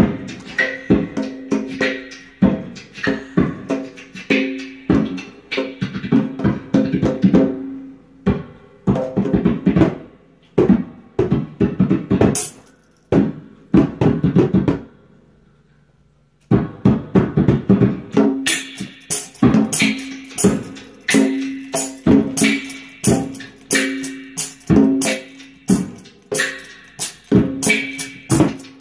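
Beatboxing through a handheld microphone with a djembe played by hand, a steady rhythmic groove of kick, snare and bass sounds. The beat drops out briefly about halfway through, then returns with crisp hi-hat ticks added on the beat.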